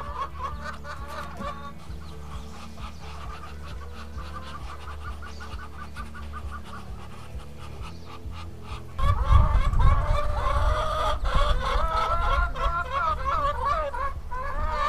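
Domestic hens clucking, a scatter of short calls that turns busier and louder about nine seconds in, when a low rumble also comes in.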